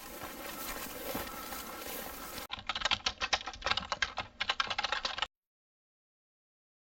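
Low background hiss for about two and a half seconds, then a sound effect of rapid computer-keyboard typing, fast irregular key clicks, for nearly three seconds as text is typed onto the screen. It cuts off abruptly into dead silence.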